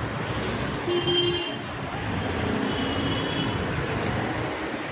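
Road traffic passing, a steady rush of cars and motorbikes, with a short horn toot about a second in and a longer one around three seconds in.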